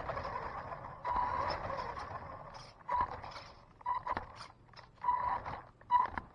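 Electric motor of an RC car whining at a fixed pitch under throttle, with scraping and rattling noise. Steady for the first couple of seconds, then in short irregular bursts as the throttle is blipped.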